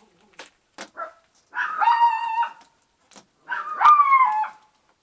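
A dog barking in two long, drawn-out barks, the first about a second and a half in and the second near four seconds, after a few faint clicks.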